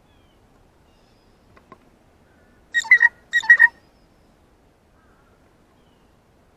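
Blue jay giving two short calls about half a second apart, each a quick run of harsh notes.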